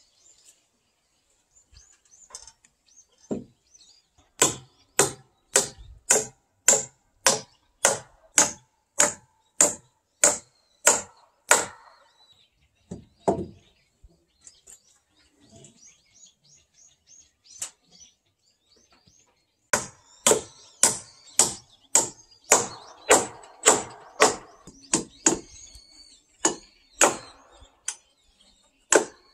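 Hammer striking on log rafters in two long runs of steady, evenly paced blows, about one and a half to two a second, with a pause of several seconds in the middle filled only by a few lighter knocks.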